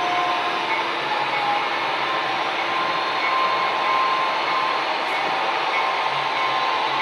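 HO-scale model diesel locomotives' DCC sound decoders playing a steady EMD diesel engine sound through their small on-board speakers, with a held whine over it.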